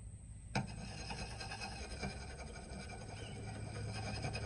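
Steel knife blade filed against the side of an ocean jasper whetstone pendant: a steady scraping rasp of steel on stone, starting with a small click about half a second in. It is coarse grinding to bring back the edge at the knife's tip.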